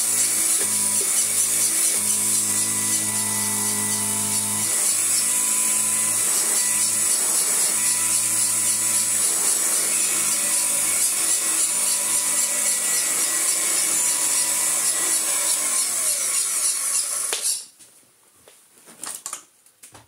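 Royal 606 upright vacuum cleaner running steadily with its nozzle tilted off the rug, a motor hum under a strong high rush of air, its motor oiler freshly given a few drops. It is switched off near the end and the sound cuts off sharply, followed by a few light knocks.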